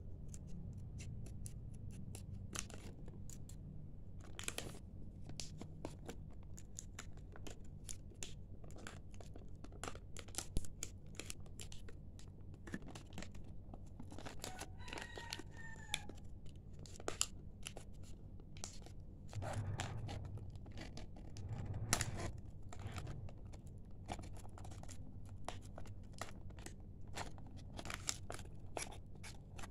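Thin clear plastic packaging being cut with scissors and pulled apart by hand: a run of small, irregular crinkles, snips and crackles, with a few louder snaps.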